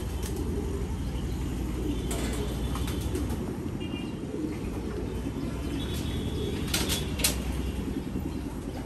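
Racing pigeons cooing together in their loft, a continuous low warbling chorus, with a few short sharp sounds scattered through it.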